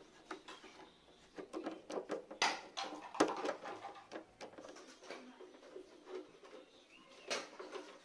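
Irregular small clicks, taps and light knocks from a hand screwdriver with a metal bit working screws out of a motorcycle's plastic body panels, the tool and screws rattling against metal and plastic. The clicks cluster most densely and loudly a couple of seconds in.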